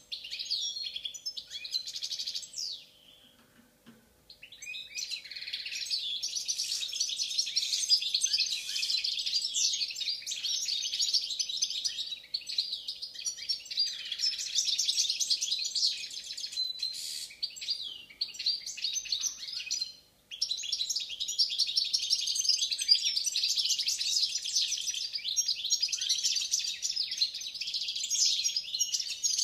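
Balkan goldfinch (Carduelis carduelis balcanica) singing in long runs of fast, varied twittering song. The song breaks off for a second or two about three seconds in and briefly again about twenty seconds in.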